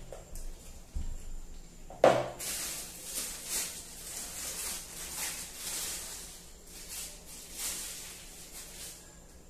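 A single sharp knock about two seconds in as a spatula is set down in the pot of frosting. Then a disposable plastic piping bag filled with red whipped cream crinkles and rustles while it is squeezed and twisted shut.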